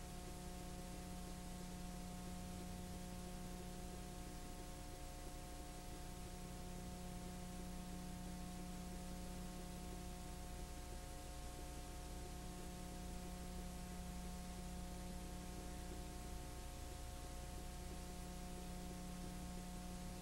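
Steady electrical hum made of several fixed tones over a constant hiss: the background noise of a transfer of a silent 9.5 mm home movie, with no sound of its own from the film.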